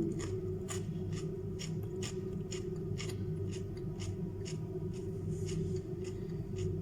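Close-up chewing of crunchy raw vegetables, the crisp crunches coming in an irregular run of about two to three a second, over a steady low hum.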